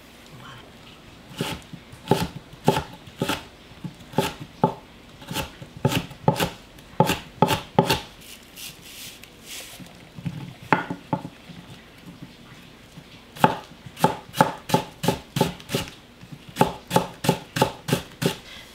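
Kitchen knife chopping on a wooden cutting board: a run of strikes cutting red chilies, a pause, then an even series of about three strikes a second slicing the white part of a green onion.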